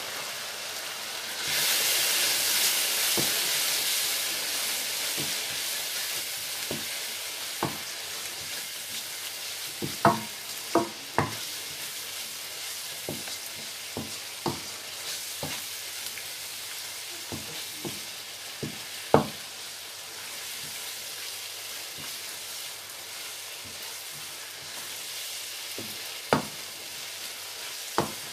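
Spiced onion-tomato masala sizzling in a non-stick wok while a wooden spatula stirs it. The sizzle is loudest about two seconds in, and there are scattered sharp knocks as the spatula strikes the pan, the loudest around ten and nineteen seconds in.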